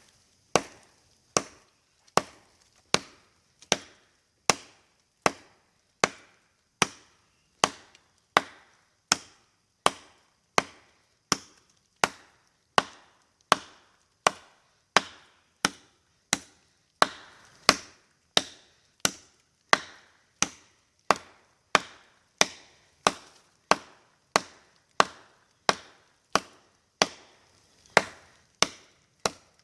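Condor Lochnessmuk, a big Nessmuk-style bushcraft knife with a 10-inch high-carbon steel blade, chopping into a cut log. The sharp chops come in a steady rhythm of about four every three seconds.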